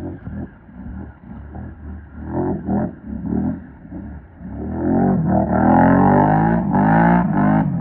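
A 420 ATV's engine revving hard in repeated rising and falling surges while the quad, bogged in deep mud and water, fights for traction. It is patchier and quieter at first, then louder and sustained from about five seconds in.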